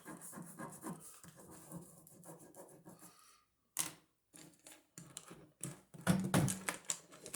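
Ballpoint pen scribbling on paper in short scratchy strokes, quiet at first and louder near the end, with one sharp tap about four seconds in, as old microwave-heated pens are tried to see whether they write.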